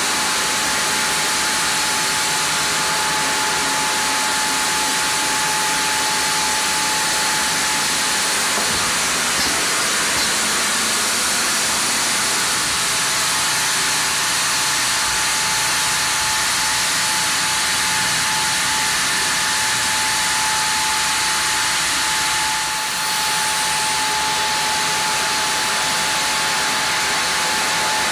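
Vertical band sawmill running and cutting a log of Japanese kalapanax (sen): a steady, loud hiss of the blade with a thin, steady whine above it.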